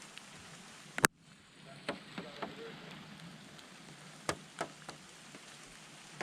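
Steady rain hiss with scattered drips tapping on a surface, and one sharp loud click about a second in.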